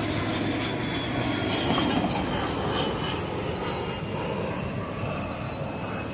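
Distant aircraft engine noise during an air show flypast, a steady rush that swells slightly a couple of seconds in, with small birds chirping a few times.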